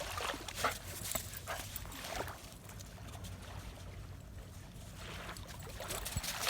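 A young dog swimming, its paddling making light, irregular splashes and lapping water.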